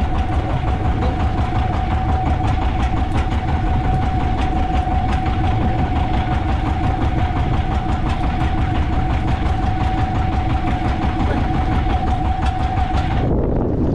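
Fishing boat's engine running steadily under way, with a constant whine over the low engine noise. Near the end the whine stops abruptly and the sound changes to lower engine noise with wind.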